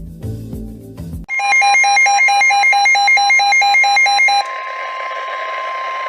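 Music for about a second, then cut off by a loud electronic Emergency Alert System alert tone: a beeping pattern about four times a second over a steady high tone, announcing an urgent weather warning. About three seconds later the beeping stops, and a quieter steady tone with hiss carries on.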